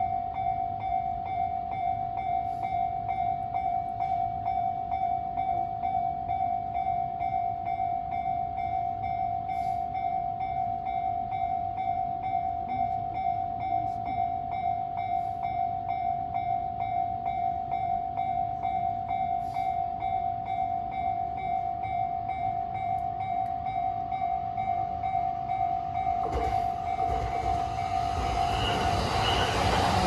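Japanese level-crossing warning bell ringing steadily in a fast repeated electronic ding. About 26 s in, the rumble of an approaching JR Saikyo Line E233-series electric train rises and grows louder toward the end.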